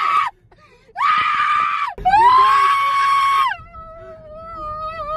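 A young man's voice belting long, very high held notes that come out as screams: one of about a second, then one of about a second and a half. These are followed by a lower, quieter held note that wavers until near the end.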